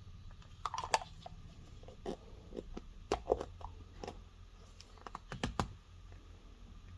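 Scattered light clicks and taps of small carburetor parts being handled as the float bowl is fitted and its screws are tightened by hand.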